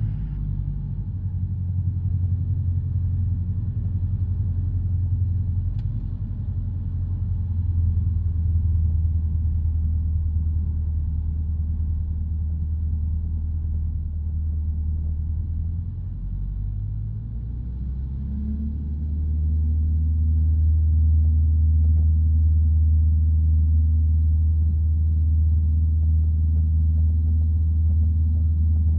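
Light aircraft's single piston engine running steadily, then opened up to full power about eighteen seconds in, rising in pitch and getting louder for the takeoff.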